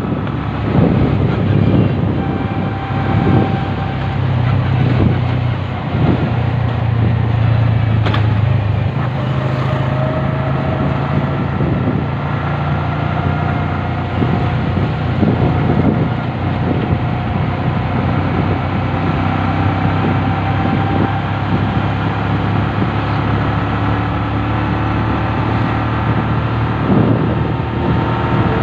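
Engine of a moving vehicle droning steadily at road speed, with wind and road noise.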